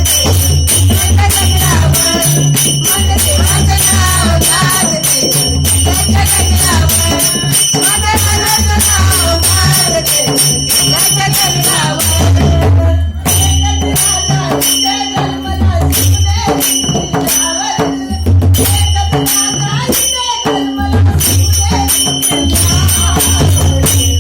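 Music from a Marathi song: a wavering melody over a bass line that changes note every second or two, with jingling percussion like bells or a tambourine throughout.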